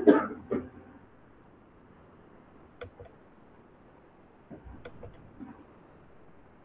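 A person coughs loudly once right at the start, then faint room noise with a few soft clicks about three seconds in and small rustling noises around five seconds in.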